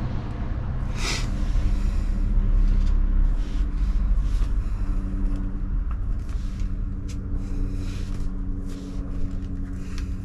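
Pen scratching on paper in short strokes as an address is written on an envelope. Underneath, a steady low engine rumble, like a vehicle idling.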